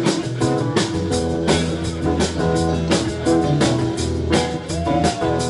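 A live band with electric guitars, bass and a drum kit plays an up-tempo rock song with a steady beat; a bent guitar note slides up and back about five seconds in.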